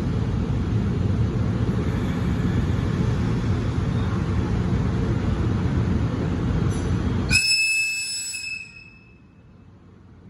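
Heavy low rumble of a train for about seven seconds, then cut off abruptly as the EF64 electric locomotive's high-pitched air whistle gives one short blast near the end, fading within about a second.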